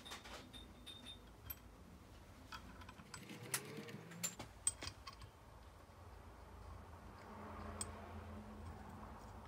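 Faint scattered clicks and taps of small metal hardware being handled on a gearbox, a nut and washer fingered and a ratchet socket set onto a bolt. A cluster of sharper metal clicks comes about four seconds in.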